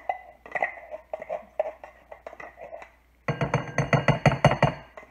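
Faint taps and clicks of a metal soup can being shaken over a glass mixing bowl, then about three seconds in a sudden short burst of music with a quick beat that stops abruptly after under two seconds.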